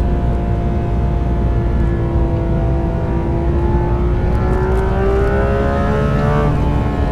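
Porsche 911 GT3 RS's 4.0-litre naturally aspirated flat-six running at high revs, in the 7,000 to 9,000 rpm range, under load. It holds a steady pitch for the first few seconds, then climbs about halfway through and falls sharply near the end.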